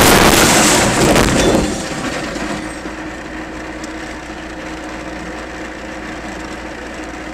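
Car crash: a loud crunch of impact with windshield glass cracking and shattering, lasting under two seconds with a second surge about a second in, then a steady hum.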